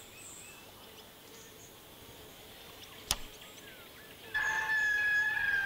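A sharp click from a portable reel-to-reel tape recorder's replay key about three seconds in. About a second later a loud, long indri song starts: a held note that falls slightly in pitch. It is played back to draw territorial indris closer.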